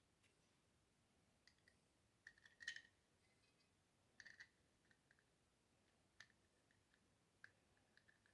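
Near silence broken by a dozen or so faint, scattered clicks and taps, the loudest cluster a little under three seconds in.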